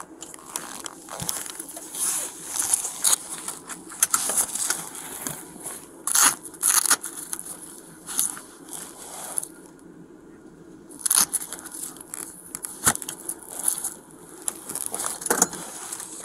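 Irregular rustling, crackling and scraping of clothing and gear rubbing against a body-worn camera's microphone as the wearer moves, with a brief lull about two-thirds of the way through.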